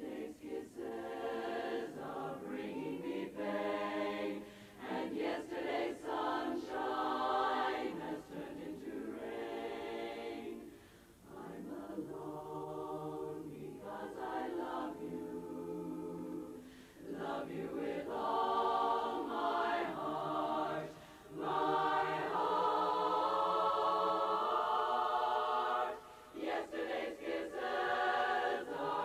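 Women's barbershop chorus singing a cappella in close harmony. The phrases are broken by short breaths, and the singing grows louder in the second half.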